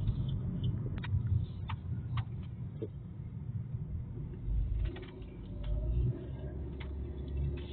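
Car driving along a city road, its low engine and tyre rumble heard from inside the cabin, with a few light clicks in the first few seconds.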